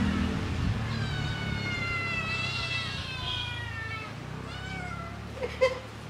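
Kittens meowing over and over, several high drawn-out meows overlapping and falling in pitch, as they beg for food. One short sharp knock comes near the end.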